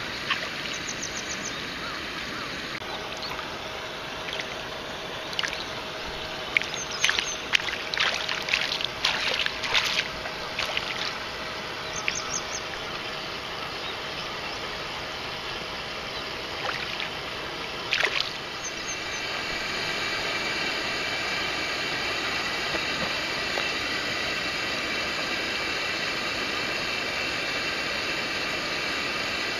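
Stream water running steadily, with a run of small splashes and knocks in the middle and one more a few seconds later. Near the end the rushing water turns louder and steadier.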